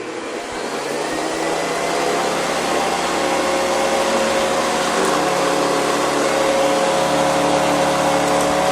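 Hoover Convertible upright vacuum cleaner with a metal fan, switched on just before and coming up to speed over the first couple of seconds, then running steadily with a whine.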